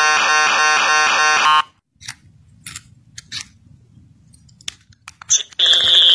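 Loud, harsh electronic beeping, many beeps a second, cuts off abruptly about a second and a half in. A few faint clicks and handling noises follow. Near the end a loud, piercing, steady electronic alarm tone starts.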